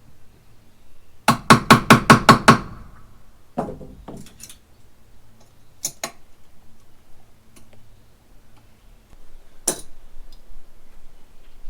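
Hammer blows: a quick run of about seven loud strikes, roughly five a second, followed by several scattered single knocks.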